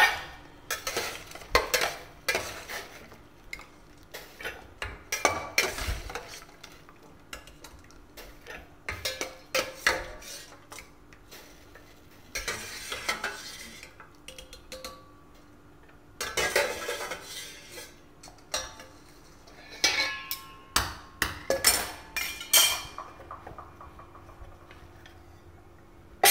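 A metal ladle clinking, knocking and scraping against a steel pot in many short, irregular strikes, as boiled cauliflower florets are scooped out.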